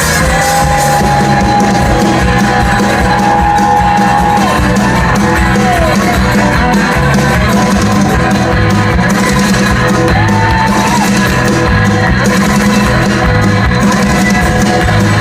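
Live rock band playing an instrumental passage, with a lead electric guitar holding long sustained notes and bending them over a steady bass and drum groove.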